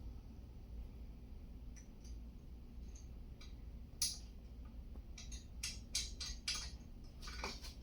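Irregular light metallic clicks and clinks of hand tools and bolt hardware being handled and fitted: one about four seconds in, then a quick cluster from about five to six and a half seconds in and another near the end, over a low steady hum.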